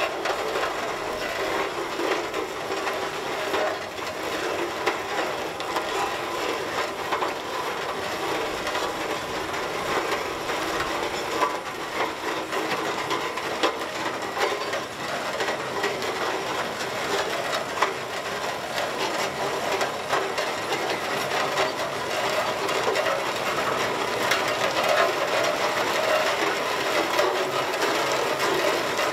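Aultman-Taylor steam traction engine moving slowly over gravel: a steady clatter and clanking of its gears and running gear, with the iron wheels crunching on the gravel.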